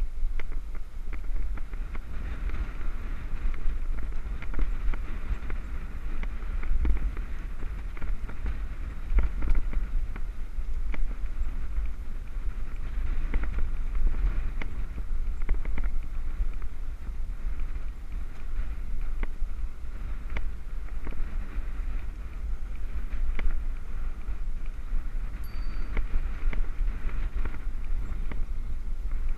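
Wind buffeting a helmet-mounted action camera's microphone as a road bike rolls along at riding speed: a steady low rumble under a hiss, with frequent small clicks and knocks.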